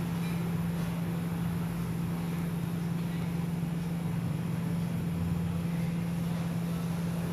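A steady low machine hum of one unchanging pitch, with a few faint light taps.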